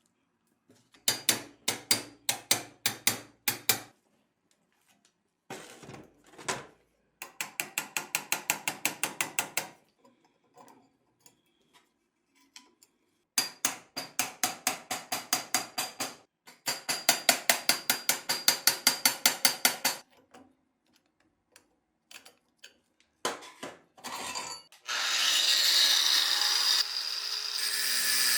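A ratchet clicking rapidly in four runs of a few seconds each, about eight clicks a second, as fasteners on an MG-81 machine gun are turned during its restoration. About 25 seconds in, a power tool starts and runs steadily.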